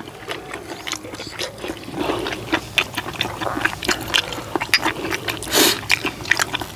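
Eating sounds from people eating spicy stir-fried webfoot octopus: wet chewing and lip smacks in many short clicks, with a brief slurp about five and a half seconds in.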